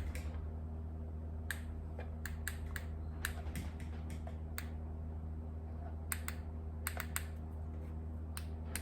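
Small plastic clicks, a dozen or more at irregular intervals, typical of a remote key fob's buttons being pressed repeatedly while its 433 MHz signal is tested. Under them runs a steady low electrical hum.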